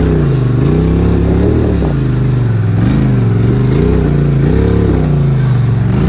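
Side-by-side UTV engine revving up and down over and over, its pitch dipping and climbing about once a second, as the throttle is worked to get the machine through a ditch.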